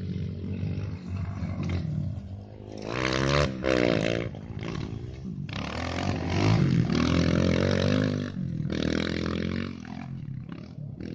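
Dirt bike engine revving hard as the bike rides by on a motocross track. The pitch climbs and falls with each burst of throttle, with brief drops where the throttle closes, and it is loudest about six to seven seconds in, as the bike passes closest.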